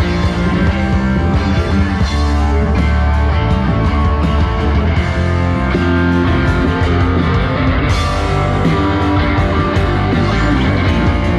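Live band playing an instrumental passage of a rock song, guitar to the fore, with no singing.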